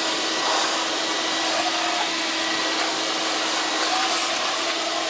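Vacuum motor of a car-upholstery cleaning machine running steadily: an even rushing noise with a constant hum.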